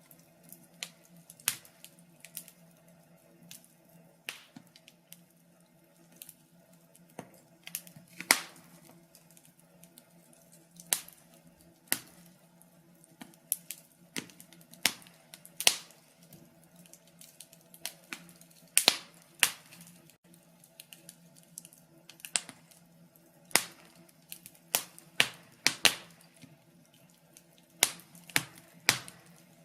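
Wood fire crackling in a fireplace: irregular sharp pops and snaps, one to three in most seconds, some much louder than others, over a faint steady low hum.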